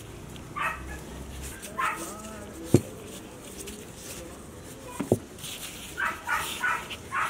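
A dog barking in short yaps: single barks early on, then a quick run of four near the end. Two sharp knocks, about two seconds apart, are the loudest sounds.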